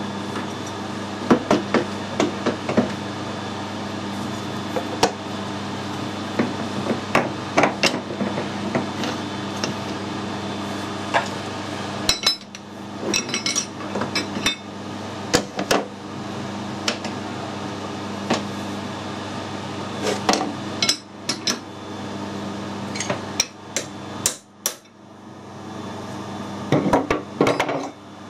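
Irregular metal clanks and knocks as a heavy four-jaw lathe chuck is handled, fitted onto the lathe spindle nose and tightened with a C-spanner. A steady hum runs underneath.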